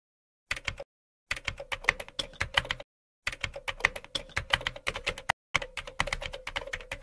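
Rapid computer-keyboard typing clicks in four runs, separated by short gaps of dead silence: a typing sound effect laid under text being typed out on screen.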